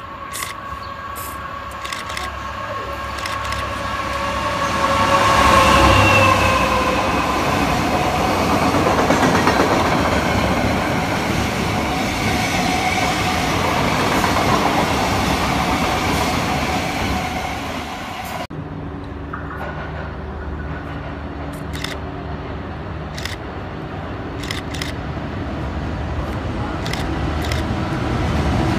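Diesel-hauled freight train passing close by. The locomotive's engine hum sinks slightly in pitch as it goes past, loudest about six seconds in, and the wagons rumble and clatter after it. About 18 seconds in the sound cuts abruptly to a steadier scene with a low engine hum and scattered clicks.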